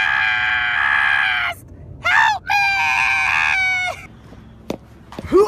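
High-pitched screaming voices: a long held scream, a short yelp, a second held scream, and a falling cry near the end, with a single click between them.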